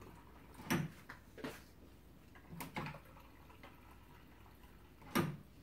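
A few scattered knocks and thuds, the loudest about a second in and again near the end, over faint room hum.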